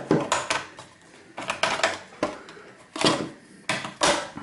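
Thin perforated sheet-steel shield of a PS4 being bent and wrenched by hand against screws that won't come out. It gives a run of irregular metallic clanks, rattles and scrapes.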